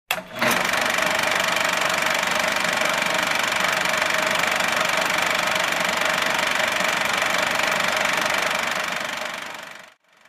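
Film projector sound effect: a steady mechanical clatter and whir that starts abruptly and fades out near the end.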